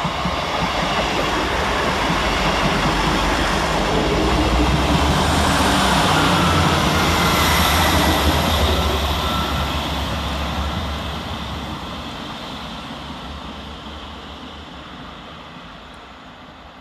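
A pair of Class 158 diesel multiple units running through the station without stopping. The rumble of engines and wheels builds to a peak about halfway through, then fades steadily as the train draws away.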